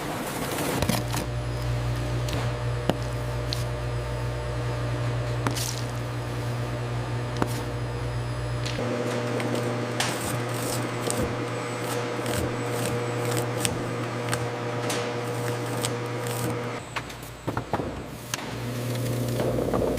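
Steady machine hum with scattered clicks and light clatter. The deeper rumble drops out about nine seconds in, and the sound briefly breaks up near the end.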